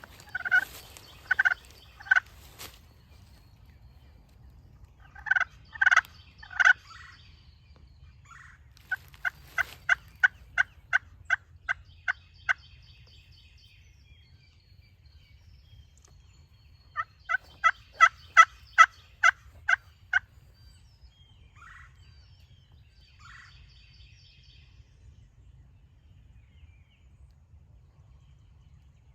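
Turkey yelps: a few short clusters of three or four notes at the start and about six seconds in, then two long runs of about a dozen evenly spaced yelps, about three a second, around ten and eighteen seconds in.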